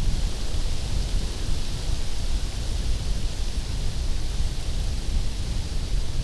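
Steady noise with a gusting low rumble and a hiss above it, typical of wind buffeting an outdoor microphone.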